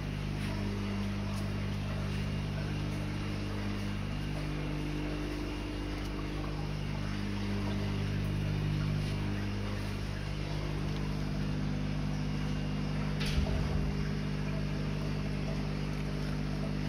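Steady machine hum made of several held low tones, some gently wavering, with one sharp knock about thirteen seconds in.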